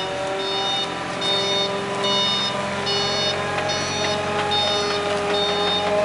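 Skid steer loader's engine running steadily while its backup alarm beeps a little more than once a second, a sign that the loader is reversing.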